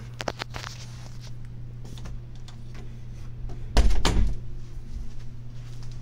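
Clicks and knocks of a closet door being handled and opened, the loudest a deep knock with rustling about four seconds in, over a steady low hum.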